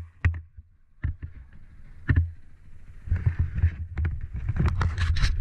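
Irregular rustling and knocking close to a helmet-mounted camera as goggles are stretched and pulled on over the helmet, with gusty wind buffeting the microphone. There is a brief lull about half a second in, and the knocks grow busier near the end.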